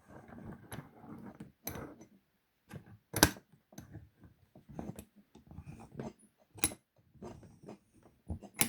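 Irregular metallic clicks and taps from a large Tool Tech padlock being handled, with a few sharper clicks among quieter rattles.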